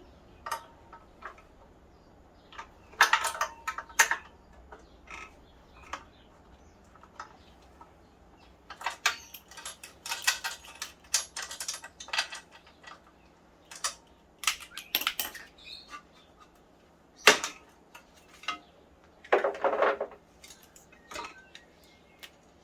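Metal tools and exercise-bike parts clinking and clicking as a nut is loosened and parts are handled during the strip-down: scattered clicks and short clattery spells, with one sharp knock about seventeen seconds in.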